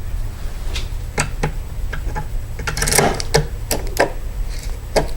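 A Schlage depth key being worked in a Schlage lock cylinder to leave impression marks on the pins, making irregular metallic clicks and ticks with a busier burst about three seconds in. A steady low hum runs underneath.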